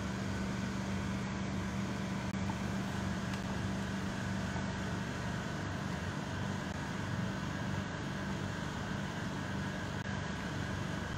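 Steady low machine hum with a faint higher whine, an unchanging room drone.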